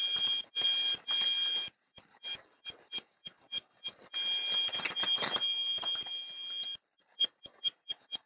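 Electric arc welding of steel: the arc crackles and hisses with a steady high whine, cutting in and out as short stuttering tacks and running as one longer continuous bead about halfway through. It is 1/8-inch steel plate being welded onto hollow structural steel tube.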